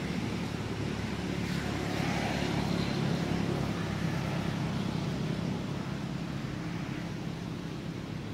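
A low, steady engine hum, like a motor vehicle running nearby. It grows a little louder about two seconds in and slowly fades toward the end.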